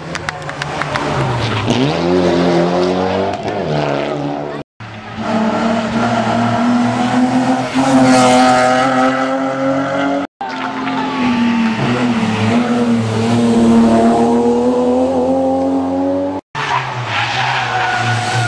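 Rally cars driven hard on a special stage, their engines revving up and down through the gears as they pass. The sound cuts off abruptly three times, a fresh car or pass following each break.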